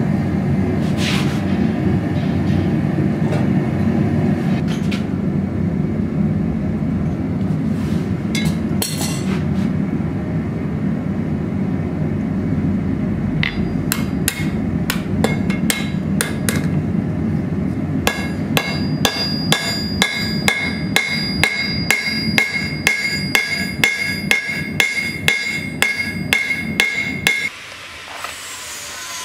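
Gas forge burner running with a steady low rush, and over it a hammer striking hot steel held in tongs on an anvil. The blows are scattered at first, then come in a steady run of about two a second with the anvil ringing, and stop shortly before the end.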